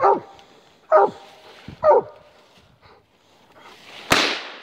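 Coonhound barking treed at the base of a tree, three short barks each dropping in pitch about a second apart, the sign that it has a raccoon up the tree. About four seconds in comes a brief, rough scraping noise, louder than the barks around it.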